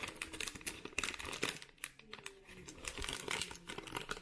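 Plastic trading card pack wrapper crinkling and crackling as it is handled and pulled open, busiest in the first couple of seconds and sparser after.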